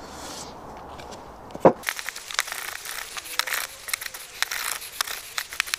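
Hand plane cutting the end grain of a softwood leg in short, quick strokes: a rapid, irregular string of crackly scrapes beginning about two seconds in, after a single sharp knock. The plane is taking down a high edge to a pencil line so the angled face sits true.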